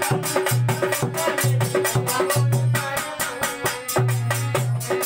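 Instrumental rasiya folk music: a dholak beats a fast, even rhythm with deep strokes, under the jingling strikes of a chimta and a harmonium holding a steady drone and playing a wavering melody.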